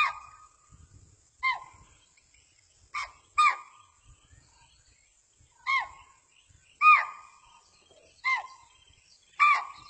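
An animal's short, high-pitched calls, each rising then falling in pitch, repeated eight times about one to two seconds apart.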